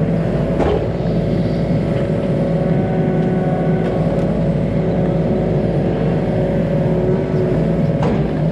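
Yanmar ViO35 mini excavator's three-cylinder diesel engine running steadily under throttle, with a faint knock about half a second in and another near the end.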